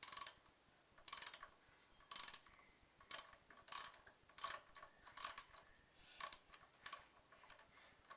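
Socket ratchet wrench clicking in short bursts about once a second as it is swung back and forth, winding a wheel nut off.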